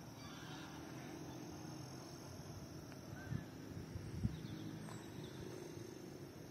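Faint outdoor ambience with distant animal calls, and two soft thumps a little past the middle, the second one the loudest.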